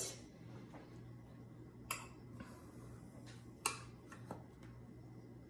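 A few light clicks and taps of a metal cake server against a glass baking dish as a slice is worked loose, the sharpest about two seconds in and again near four seconds, over a low steady hum.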